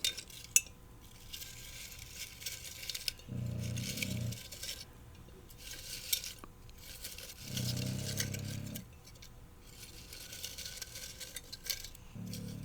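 Small clinks and rattles from a jar and the paper quote slips inside it being handled, with one sharp click about half a second in. Under them a puppy snores, a low snore about once every four seconds.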